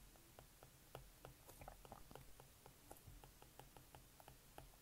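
Faint, irregular clicks of a stylus tip tapping a tablet's glass screen while writing by hand, about four a second, over near silence.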